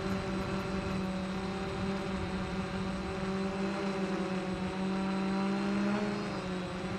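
DJI Phantom FC-40 quadcopter's motors and propellers in flight, a steady buzzing hum picked up close by the camera mounted on the drone. The pitch shifts slightly about six seconds in as the drone manoeuvres.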